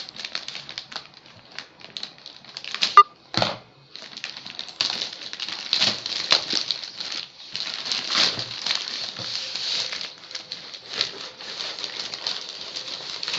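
Plastic mailer bag crinkling and rustling as it is cut with scissors and torn open by hand, a dense crackle of small clicks with a sharp snap about three seconds in.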